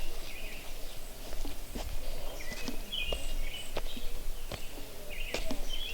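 Birds chirping with short, high calls, over scattered footsteps and clicks and a low wind rumble.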